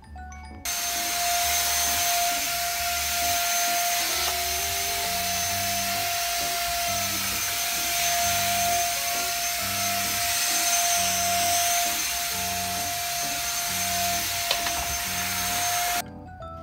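Stick vacuum cleaner vacuuming a bed sheet: it switches on about half a second in and runs steadily, a rushing hiss with a steady whine, then cuts off suddenly near the end.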